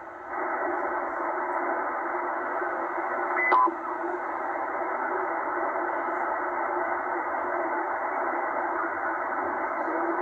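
Tecsun H-501X shortwave receiver in upper-sideband mode giving a steady, narrow, muffled hiss of band noise as it is tuned up through about 5400 to 5450 kHz. About three and a half seconds in, a brief whistle drops in pitch as a carrier is tuned past.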